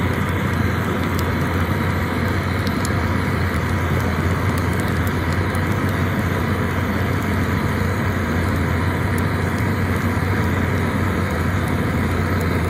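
Propane weed-burner torch running under a stack of split firewood in a steel fire pit, a loud steady rushing flame noise as it lights the fire. A few faint ticks sit over it.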